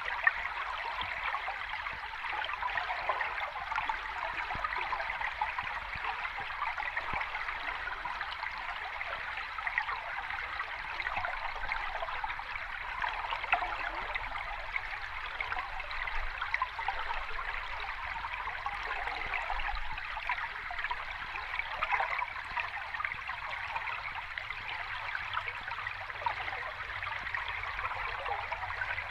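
Water flowing and splashing over rocks in a stream or small cascade, a steady, busy trickle and babble with many small splashes.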